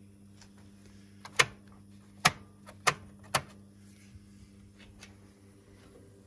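Four sharp mechanical clicks in about two seconds, from handling a portable radio-cassette player, over a steady low electrical hum.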